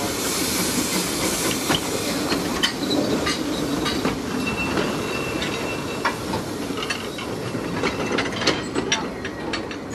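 Narrow-gauge steam train moving past: steam hissing from the Hunslet saddle-tank locomotive, then the carriages rolling by with wheels clicking over the rail joints and a brief high squeal about halfway, growing quieter as the train draws away.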